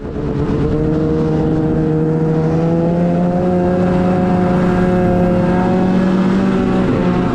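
Snowmobile engine running as the sled travels along a trail, heard from a chin-mounted helmet camera. Its pitch climbs gradually and dips briefly near the end.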